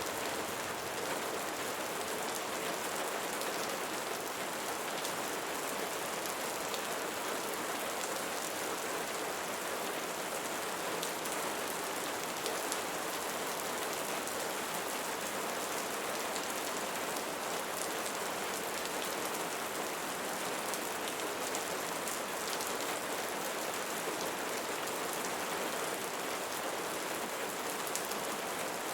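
Steady rainfall, drops pattering densely on a surface in an even hiss with fine ticks of individual drops.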